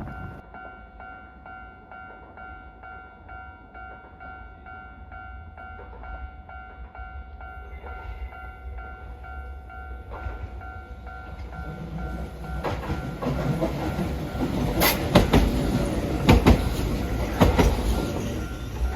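Level crossing alarm sounding with a steady, evenly pulsing electronic ding. About two-thirds of the way in a train runs up and passes loudly, its wheels knocking sharply over the rail joints several times.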